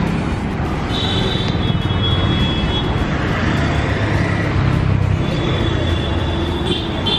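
Steady street traffic noise: a dense low rumble of passing vehicles, with a few high held tones about a second in and again near the end.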